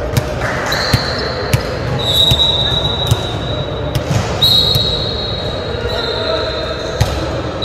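Volleyballs thudding on a gym's hardwood floor and being struck, sharp knocks every second or two that echo in the large hall. A thin high squeal comes and goes over them.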